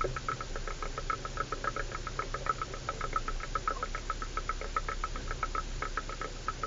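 A 4x4 driving over a rough dirt track: quick, irregular knocking and rattling, many clicks a second, over a low, steady engine hum.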